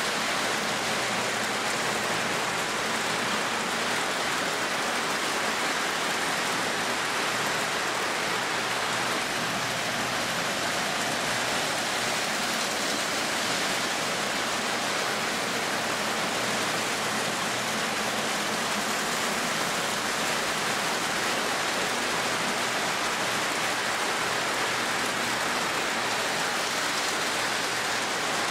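Three-rail O-gauge model freight train of covered hopper cars rolling past on metal track, a steady rushing clatter of wheels on the rails with a low hum underneath.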